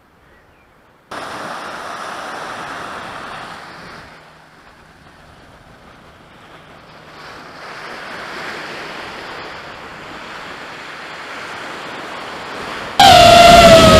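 Surf washing onto a sandy beach, with wind noise, starting about a second in and dipping for a few seconds in the middle. Near the end a much louder wavering, siren-like wail cuts in suddenly.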